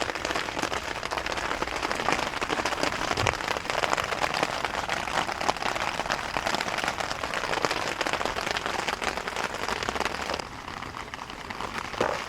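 Heavy rain falling, a steady hiss dotted with many separate drop hits close by. It gets quieter about ten seconds in.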